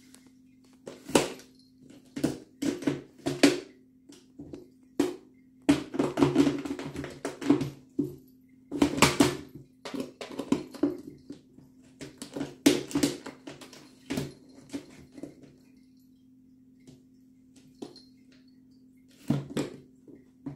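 Cat biting, clawing and pushing at a plastic food container on a tile floor: irregular bursts of clicks, knocks and rattling scrapes, with a pause in the last few seconds. A steady low hum from a pet water fountain's pump runs underneath.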